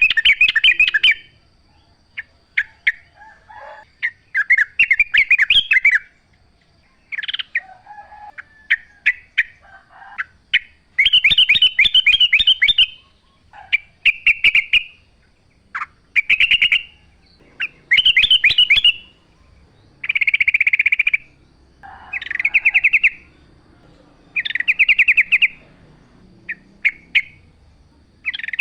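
Yellow-vented bulbul (trucukan) singing: about a dozen short, rapid, bubbly song phrases repeated with brief pauses between them.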